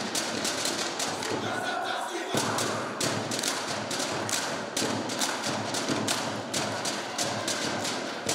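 A seated group of dancers slapping their bodies and clapping in unison, a fast steady rhythm of sharp slaps about four a second, with a short break about two seconds in.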